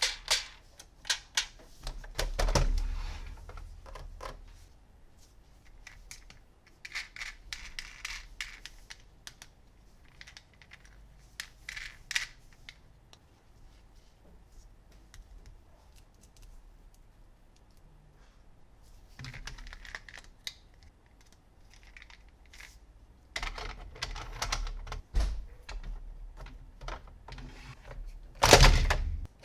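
Plastic toy vehicles and their packaging handled close to the microphone: scattered clicks and taps, stretches of rustling and crinkling, and a louder knock near the end.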